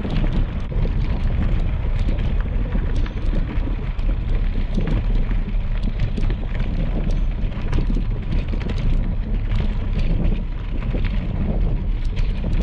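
Bicycle tyres rolling over loose gravel, a continuous crunching rumble peppered with small clicks and rattles from the bike, with wind buffeting the handlebar camera's microphone.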